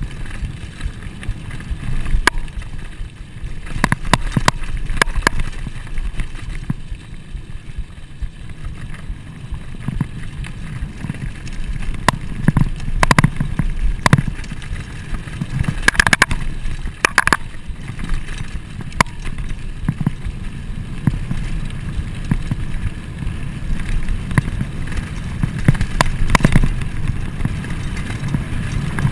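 Riding noise of a Trek Fuel EX full-suspension mountain bike descending a dirt trail: a steady low rumble of wind on the microphone and tyres on dirt, with scattered sharp clacks and rattles from the bike over bumps, clustered around the middle and again near the end.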